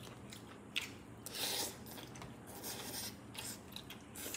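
Faint eating sounds at a table: a metal spoon clicking and scraping against plastic food containers, with a louder scrape about a second and a half in.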